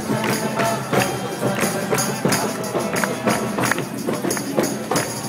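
Live acoustic guitar music with people clapping their hands along to a steady beat, about three claps a second.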